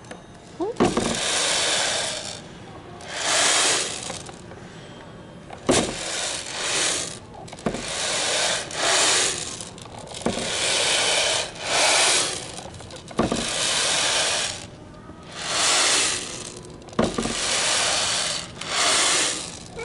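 Small beads rattling and shifting under the pressed wooden leaf panel of a hands-on exhibit, in repeated bursts about a second long, with a few sharp knocks of the board.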